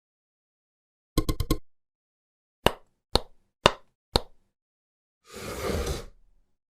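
Stop-motion foley sound effects in dead silence: a quick run of four sharp taps, then four single taps about half a second apart, then a short scraping rush near the end.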